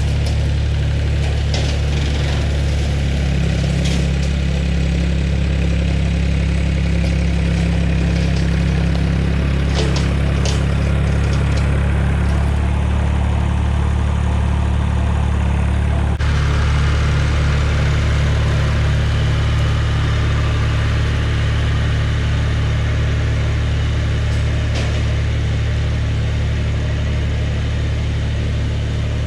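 Farm tractor engine running steadily at constant speed, with a slight shift in its pitch about halfway through.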